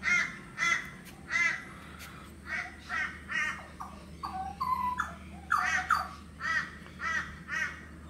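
Crows cawing: harsh calls repeated in runs of three or more, about two to three a second. Around the middle a few short, clear whistled notes from another bird come in between the caws.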